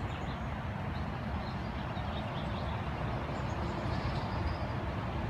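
Steady low outdoor rumble, with small birds chirping faintly in short repeated notes.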